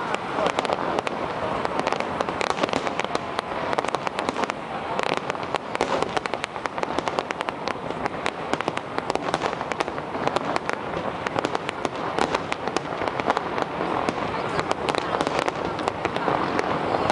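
Fireworks display with many shells bursting and crackling in a dense, unbroken rattle of sharp bangs and pops.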